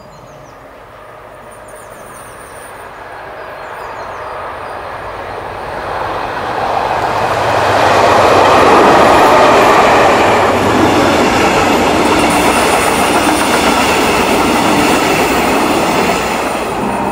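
DB class 218 diesel-hydraulic locomotive hauling a double-deck regional train, its engine sound growing steadily louder as it approaches and passes about eight seconds in. The loud rumble of the coaches' wheels on the track follows.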